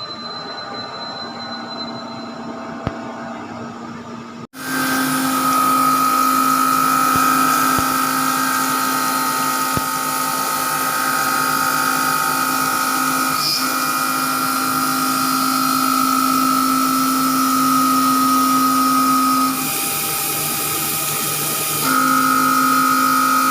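Vertical machining centre (VMC) running a milling operation: a steady high machine whine over a lower hum. The sound gets abruptly louder about four seconds in. The whine drops out for about two seconds near the end, then returns.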